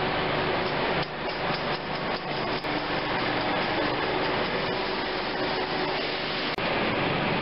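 Automated seedling-tray rack stacker running, a steady mechanical hum and rush with a few light clattering knocks between about one and two and a half seconds in.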